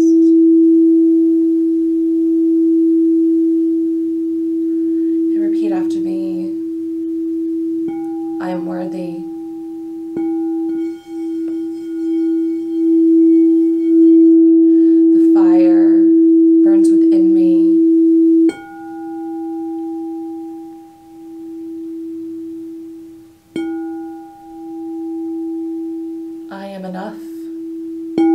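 A large frosted crystal singing bowl rung with a mallet, holding a steady low hum. Light strikes add a higher ringing tone, and after a stronger strike a little past halfway the tone swells and pulses slowly as it rings.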